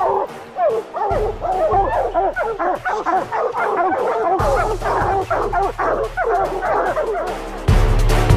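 A pack of hunting hounds barking treed together at the base of a tree, many overlapping barks and bawls: the sign that they have a bear up the tree. Music with a heavy low beat comes in and is loud near the end.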